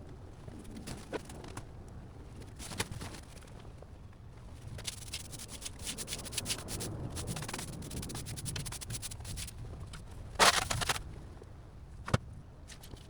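Scraping, rustling and scattered knocks of hands-on work, with a louder half-second burst of noise about ten and a half seconds in and a single sharp knock near the end.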